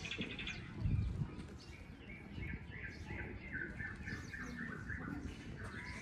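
Birds chirping: a quick run of short, high, falling chirps, a few each second, starting a couple of seconds in. A brief low rumble about a second in.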